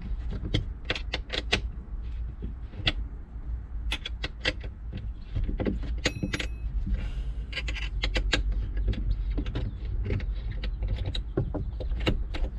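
Irregular light metallic clicks and clinks of a hand tool on the screws and hardware of a rear-seat-delete platform as the screws are loosened, with a brief high squeak about six seconds in.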